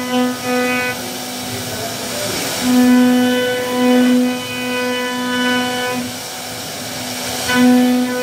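CNC router spindle carving wood: a steady hum of fixed pitch that swells and fades as the bit works through the cut, with short spells of rushing cutting noise about two and a half seconds in and again near the end.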